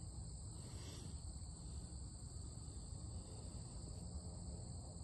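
Steady high-pitched insect chorus, continuous and unchanging, over a faint low rumble.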